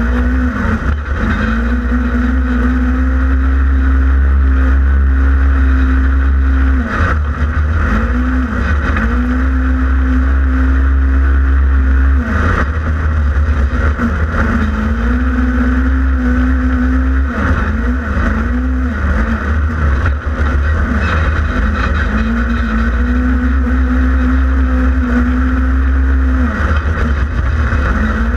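Polaris RZR XP 1000 side-by-side's twin-cylinder engine being driven hard, its pitch holding high and then dropping and climbing back several times as the throttle is lifted and reapplied, over a heavy low rumble.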